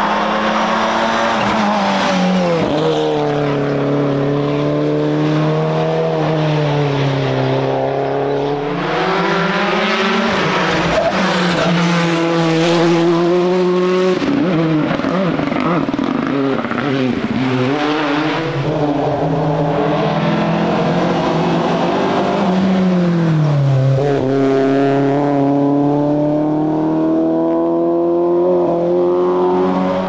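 Rally cars at full effort, among them a Mitsubishi Lancer Evolution X and a Hyundai i20 rally car, their turbocharged engines revving high. The pitch drops as they brake and shift down for a corner, then climbs again as they accelerate away, several times over.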